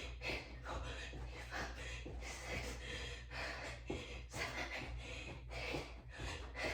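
A woman breathing hard during push-ups: short, forceful breaths roughly one or two a second, in time with the reps, over a low steady hum.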